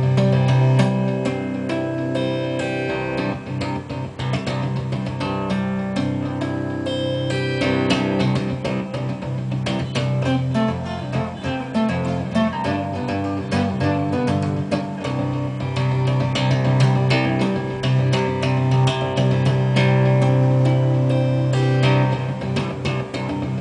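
Guitar music: many plucked notes over held low bass notes.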